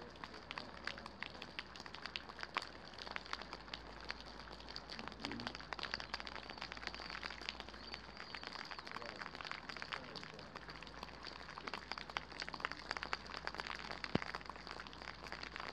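Rain pattering, a dense crackle of individual drops striking close by.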